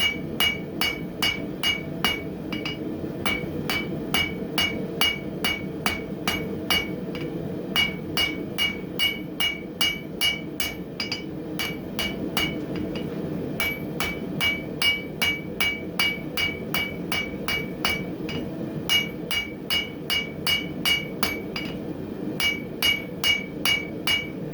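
Hand hammer striking hot coil-spring steel on an anvil to draw out the stock, about two to three blows a second in runs with short pauses; many blows ring with a clear high anvil tone. A steady forge noise runs underneath.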